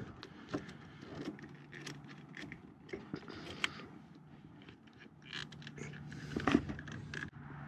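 Light metal clicks and scrapes as a battery cable's ring terminal and rubber boot are handled and fitted onto the positive post of a 12-volt generator starting battery, with a louder clunk near the end.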